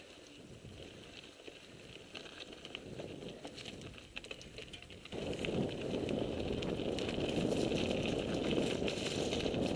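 Mountain bike riding over a dry dirt and rocky trail: tyres crunching, with scattered clicks and rattles from the bike. About halfway through, a much louder rushing rumble comes in and stays.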